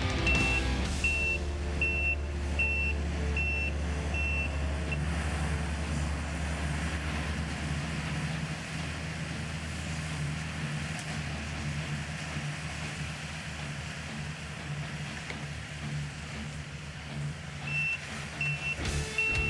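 Skid steer engine running steadily under a low drone, with its backup alarm beeping about once every 0.8 seconds for the first five seconds and again near the end.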